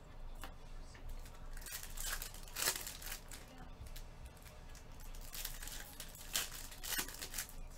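Foil wrapper of a trading card pack crinkling and tearing as gloved hands rip it open, in irregular bursts, the loudest about two to three seconds in and again near the end.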